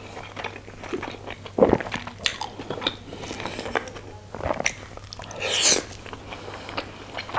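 Close-up mouth sounds of chewing a steamed chicken momo, picked up on a clip-on microphone: irregular wet smacks and clicks.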